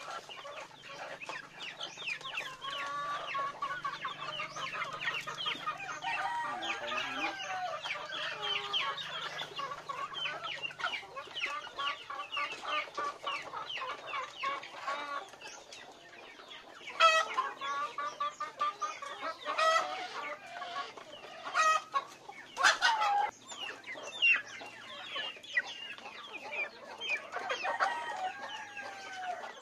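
A flock of native chickens with chicks clucking and peeping busily as they crowd in to feed. Several louder calls stand out in the second half.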